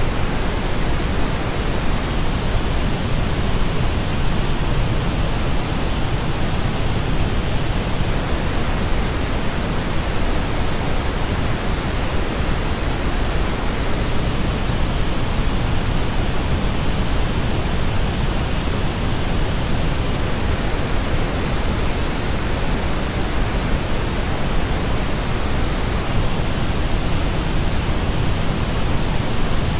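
Steady pink noise that switches about every six seconds between the flat reference signal and a version shaped by the Dan Clark Audio Expanse headphone's frequency response. The top treble drops noticeably in every other stretch.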